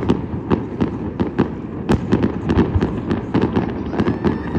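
Many fireworks and firecrackers going off in quick, irregular succession: sharp cracks and bangs several times a second over a continuous low rumble of overlapping distant blasts. A faint rising whistle starts near the end.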